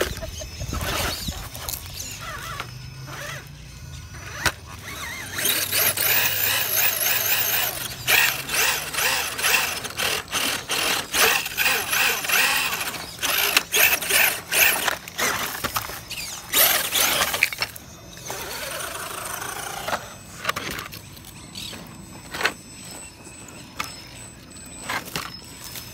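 Radio-controlled rock crawlers' electric motors and gears whining in repeated throttle pulses as they climb over rock, with scattered clicks and knocks of tyres and chassis on stone. The whine is loudest and most continuous through the middle of the stretch, then gives way to scattered knocks.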